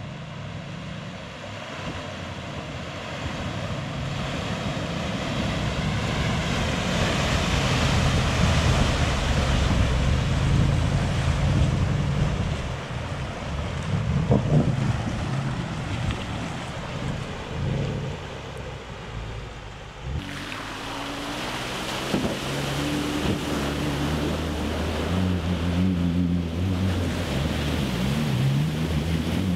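Range Rover Sport and Jeep Wrangler Rubicon wading through deep water: engines working under load, with a steady rush and splash of water around the wheels. The water noise swells over the first several seconds. After an abrupt change about 20 seconds in, the engine note rises and falls in steps.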